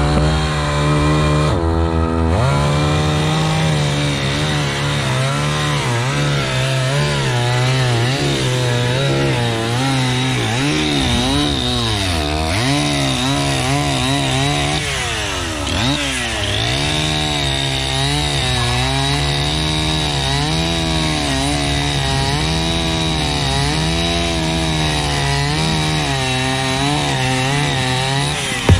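Gas chainsaw running under load as it cuts through a fallen tree trunk. The engine pitch wavers as the chain bites, with deeper sags about 2, 12 and 16 seconds in before it picks back up.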